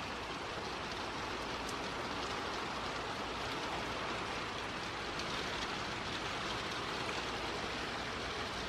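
Steady rain falling: an even, constant hiss with occasional faint drop ticks, the light tail end of a dying thunderstorm.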